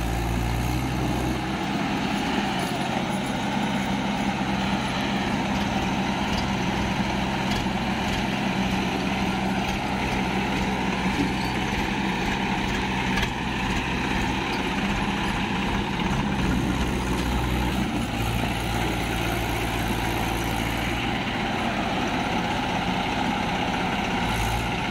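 Swaraj tractor's diesel engine running under load as it hauls a loaded trolley up a sandy slope, its low note shifting several times as the load changes.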